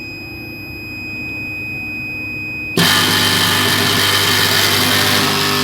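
Steady electrical hum from a 100 kVA servo voltage stabilizer. About three seconds in, a much louder steady rushing, humming noise starts suddenly.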